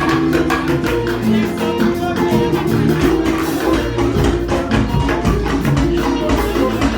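Church band music with a steady beat: tambourine and other hand percussion striking rapidly over sustained instrumental chords.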